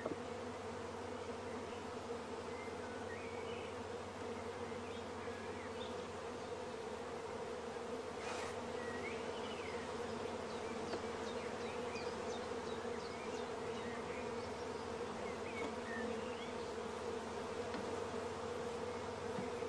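Steady buzzing hum of a large mass of honey bees, from a queenless, broodless shook swarm of young bees confined in a screened swarm box.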